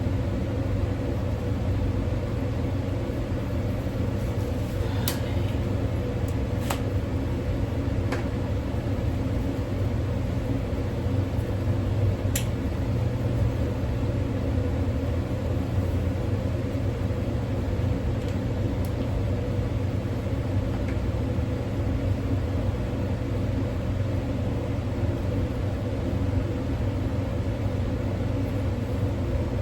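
Steady low mechanical hum, like a fan or air-conditioning unit, with a few faint sharp clicks.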